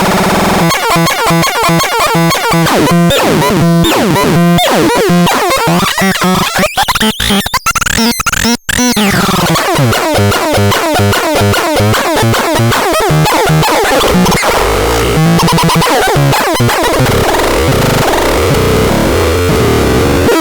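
Synthesizer playing harsh, noisy electronic tones chopped into a fast stuttering pulse. In the middle come sweeping pitch glides and a brief cut-out. Near the end it settles into a wavering tone.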